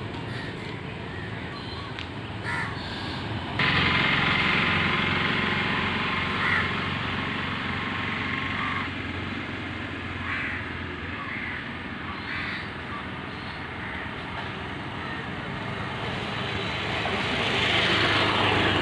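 Roadside ambience with crows cawing now and then. A steady buzz starts abruptly about four seconds in and dies away by about nine seconds, and the sound of an approaching motor vehicle swells near the end.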